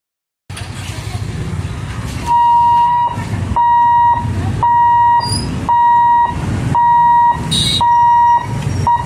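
Electric level-crossing warning buzzer beeping steadily about once a second while the boom barriers lift, starting about two seconds in. Underneath, a low steady rumble of motorcycle and auto-rickshaw engines waiting at the crossing.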